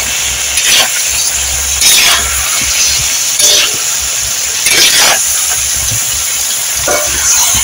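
Fish curry with chillies and vegetables cooking hard in a pot: a steady sizzling hiss broken by a short, louder crackle or spatter every one to two seconds.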